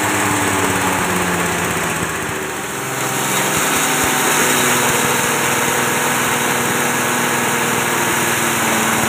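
Small petrol engine running steadily under load, driving a belt-driven chopper-grinder that is grinding dry material. Its note dips briefly and settles slightly lower about three seconds in.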